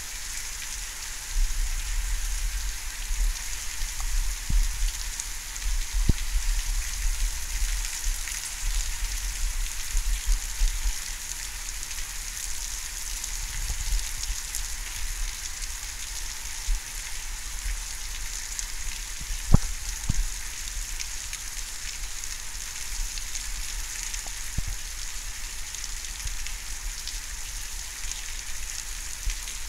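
Thunderstorm rain falling steadily, an even hiss, with a few sharp ticks of drops striking something close, the loudest about two-thirds of the way through. A choppy low rumble runs under it for the first third or so.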